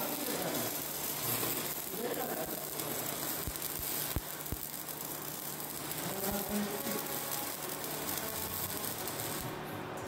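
Stick-welding arc crackling steadily as a bead is laid on a steel Unistrut channel, stopping about nine and a half seconds in as the arc is broken.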